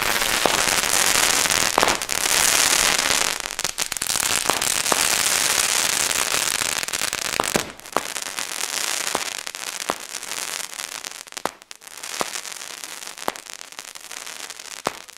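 Feuersturm crackling comet batteries firing. The comets go up with sharp pops, one after another, and their crackling tails make a dense continuous crackle. About halfway through it thins to separate cracks and softer crackling.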